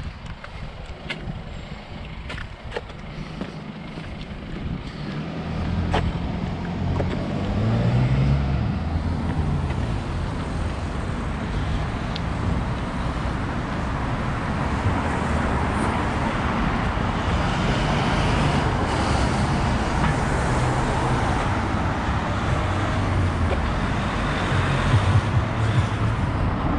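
Road traffic passing close by on a town street: car engines and tyre noise, building up about five seconds in and then running steadily.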